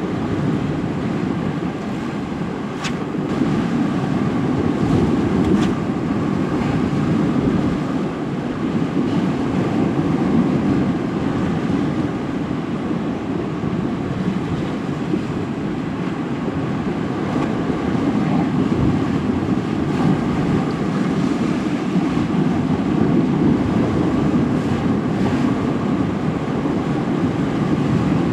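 Surf washing onto the shore in a steady, swelling rush, with wind rumbling on the microphone.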